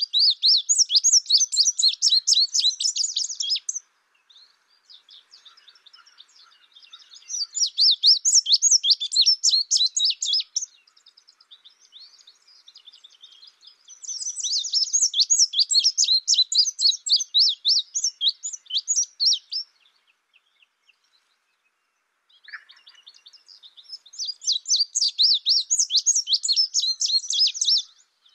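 Indigo bunting singing: four bursts of rapid, high chirping notes, each lasting a few seconds, with fainter notes in the gaps between them.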